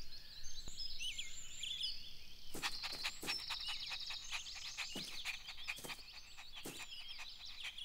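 Faint outdoor birdsong ambience: small birds chirping and twittering in quick repeated calls, with scattered light clicks.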